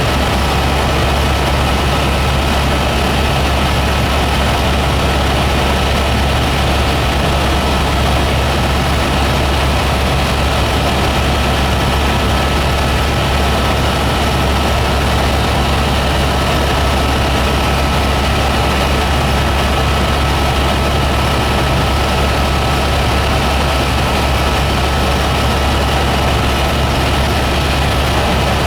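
Helicopter engine and rotor noise heard from inside the cabin in flight: a loud, steady drone with a thin, steady high tone over it.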